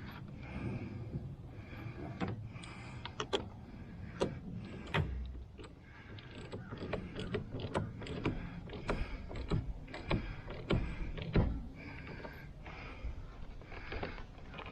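Scattered clicks and knocks of plastic trim and parts being handled and fitted around a truck's steering wheel, over a low rustle.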